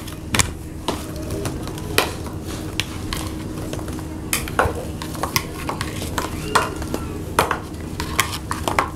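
Irregular light clicks and taps of metal spoons knocking against crisp pani puri shells and the bowl, with puris dropping onto plastic plates, over a steady low hum.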